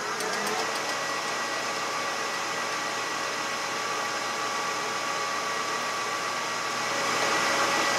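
Metal lathe running at steady speed while a twist drill in the tailstock's Jacobs chuck peck-drills into the spinning workpiece: a steady whirr with a faint high whine, getting a little louder about seven seconds in.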